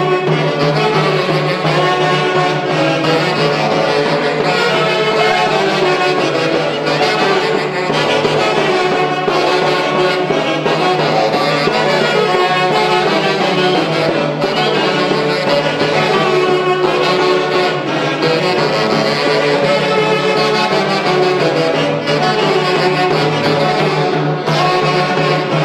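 Live Huancayo Santiago band music: saxophones and violins playing the melody over a steady bass drum beat.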